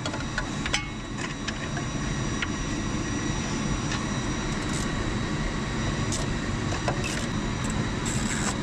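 Steady low background rumble, with a few faint, scattered clicks from a socket wrench and extension turning out the bolts that hold a CFM56-5B fan outlet guide vane doublet.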